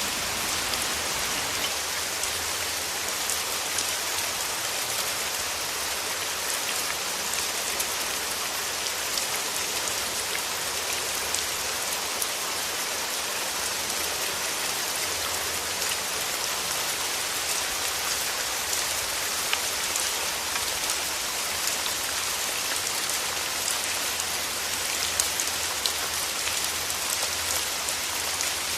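Steady rain falling, an even hiss of many drops with small patters of individual drops striking a surface.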